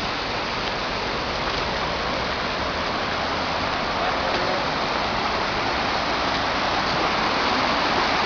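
Floodwater rushing through a swollen river channel: a steady, loud roar of fast-flowing water.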